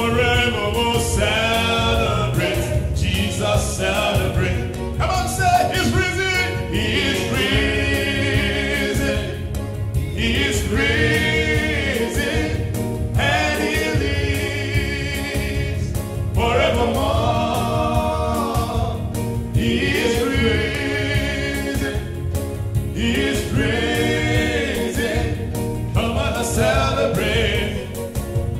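A man singing a gospel song through a handheld microphone in long phrases, over a steady low accompaniment.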